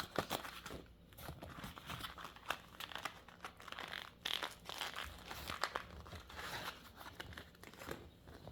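Packaging crinkling and rustling as it is handled, with many small sharp clicks throughout.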